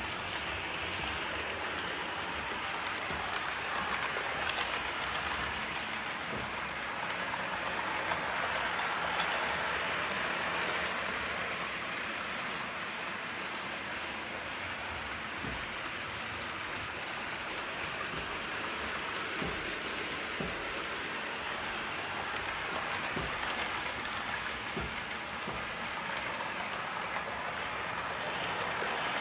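OO gauge model trains running on the layout's track: a steady rushing noise of metal wheels rolling on the rails, with occasional faint clicks.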